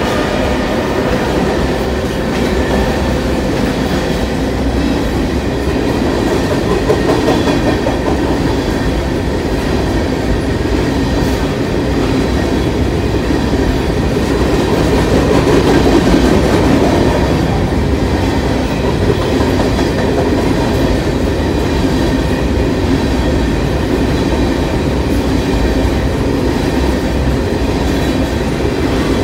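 Covered hopper cars of a freight grain train rolling steadily past at speed: a continuous loud rumble with the clickety-clack of wheels over rail joints.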